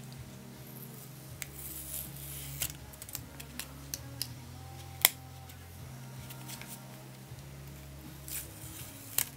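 Fingers handling and working at a plastic HP 940 ink cartridge: small scratches and clicks of plastic, with one sharp click about five seconds in and another near the end.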